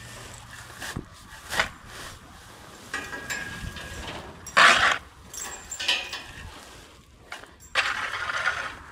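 Scraping and scooping of hardened bedding and manure on a barn floor, in several irregular, noisy strokes, the loudest about halfway through.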